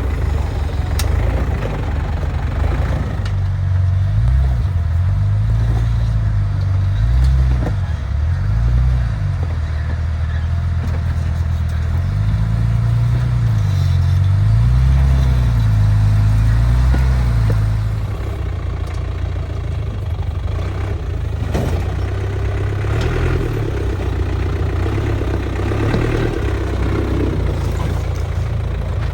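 Off-road vehicle engine running, its revs rising and falling repeatedly for about fifteen seconds, then settling to a steadier, slightly quieter drone.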